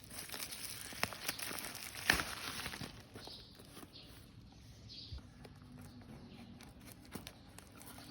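Rustling and crinkling handling noises with scattered sharp clicks, the loudest about two seconds in, growing softer and sparser after about three seconds.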